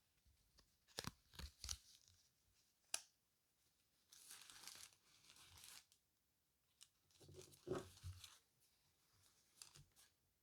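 Packaging being handled and torn open. First a few sharp crinkles and clicks, then a stretch of tearing about four seconds in, then some dull handling thumps around eight seconds.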